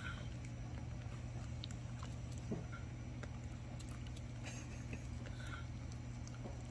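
A dog nibbling and chewing a piece of gompi seaweed held in fingers: faint, scattered small clicks over a steady low hum.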